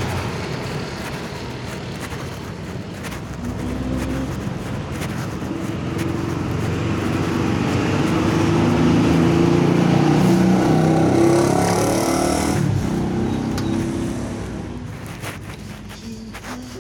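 A motor vehicle going past, getting louder to a peak about ten seconds in, dropping off sharply soon after, then fading.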